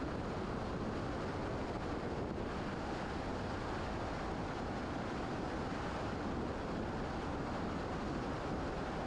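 A steady, even rushing noise that holds at one level throughout, with no distinct tones or knocks.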